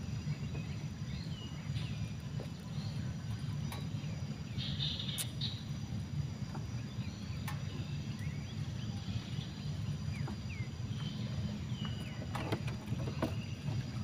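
Outdoor ambience: a steady low rumble of wind and water, with scattered short high bird chirps and a few faint clicks.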